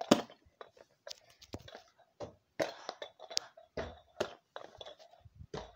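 Hands fumbling with a small fidget toy close to the phone's microphone: irregular clicks and taps, with a few soft thumps.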